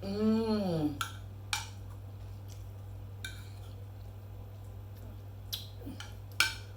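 A person humming a long 'mmm' of enjoyment while eating, lasting about a second, then a handful of scattered sharp clicks from eating, over a steady low electrical hum.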